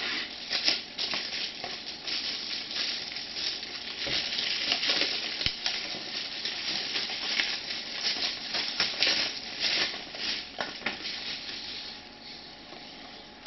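Packaging being unwrapped by hand: a dense rustle with many small, irregular crackles, quieter near the end.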